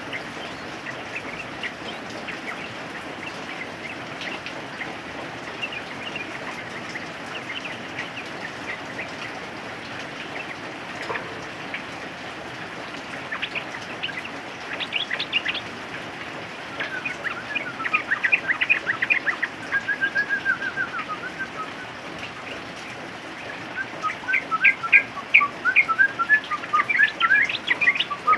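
Yellow-vented bulbuls (trucukan) calling in short bursts of quick bubbling notes over a steady hiss of rain; the first half is mostly rain with scattered faint notes, and the calls get louder and busier in the second half.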